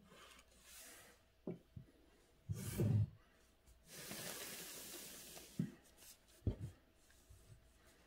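Ink brush dragging across paper as a stroke is written, a soft scratchy rustle. A dull thump comes near the middle, followed by a longer rustle and a few light knocks as the brush and paper are handled.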